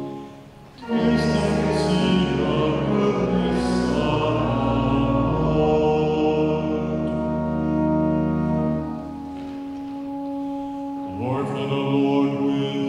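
Church singing with organ accompaniment, the responsorial psalm of a Mass. Long held organ chords with a deep bass sit under the sung melody. The music drops away briefly at the start and comes back in about a second in.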